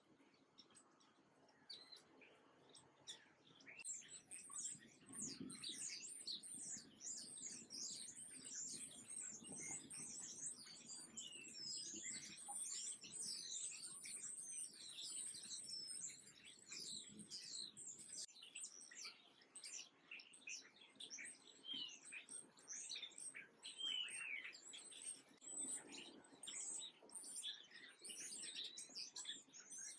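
A dense chorus of small songbirds chirping, many quick high chirps overlapping, getting busy a few seconds in.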